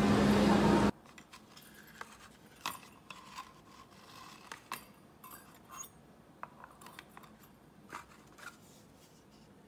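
Steady background noise of an eating area with a low hum, which cuts off about a second in. Then come scattered light clicks and taps as small plastic and wire kitchen gadgets, an egg slicer and a handheld milk frother, are picked up and set down on a countertop.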